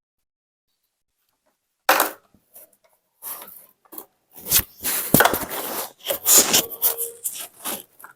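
Sticky jelly slime being squished and pulled, a run of short crackling and scraping noises that starts suddenly about two seconds in after dead silence.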